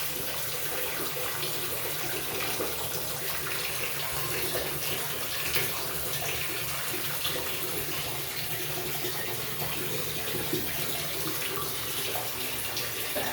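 Water running steadily into a Schluter shower pan, filling it for a flood test of its waterproofing.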